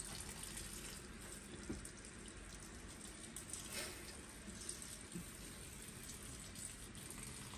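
Faint, steady trickle of a thin stream of water pouring from a watering can into a potted plant.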